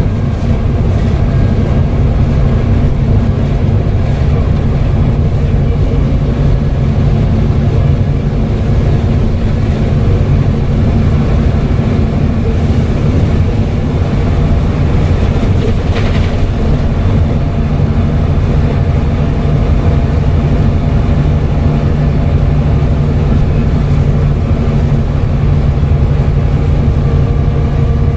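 Volvo B7TL bus's six-cylinder diesel engine running steadily: a deep, even drone with fainter steady tones above it. A single short click about sixteen seconds in.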